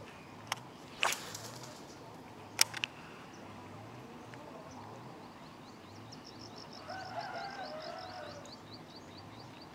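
A bird trilling in the second half: a fast run of short, high chirps, about five a second. Earlier, a few sharp clicks sound, the loudest about two and a half seconds in.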